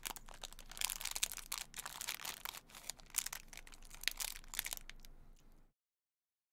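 Dense crackling and crinkling noise made of many sharp crackles, which cuts off abruptly to dead silence near the end.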